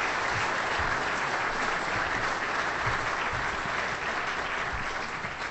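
An audience applauding steadily as a speaker is welcomed to the podium, fading out near the end.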